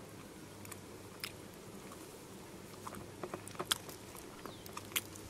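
Faint chewing and biting of a chocolate-coated candy, with a scatter of small sharp clicks, most of them between about three and five seconds in.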